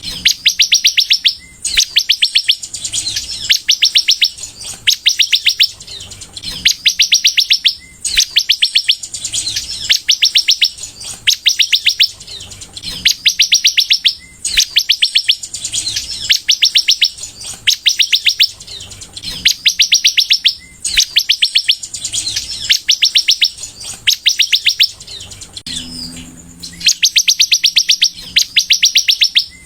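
Sunbird ('kolibri') singing in full voice: rapid, high trills of evenly spaced notes in phrases about a second long, repeated one after another with short pauses.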